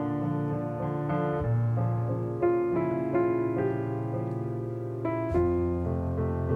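Background piano music, with its low bass note changing twice.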